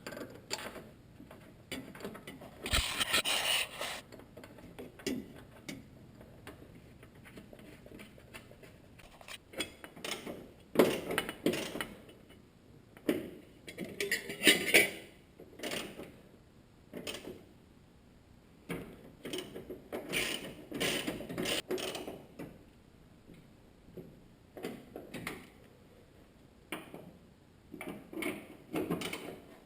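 Hand tools working on the engine-mount bolts: bursts of ratchet-wrench clicking and metal clinks, starting and stopping with short pauses between.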